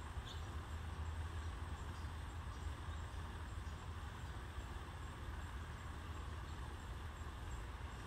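Steady low outdoor rumble, like distant traffic or wind, with one faint short high chirp just after the start.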